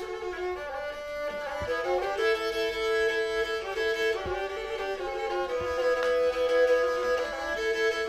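Black Sea kemençe, a small bowed fiddle, playing a tune in two-note harmony, with held notes that change every second or so.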